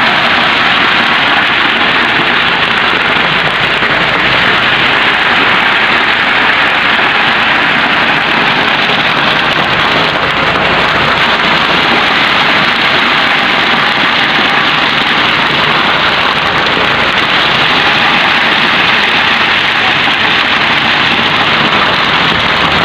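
Concrete mixer truck running with its drum turning as it discharges wet concrete down a chute: a loud, steady noise that does not let up.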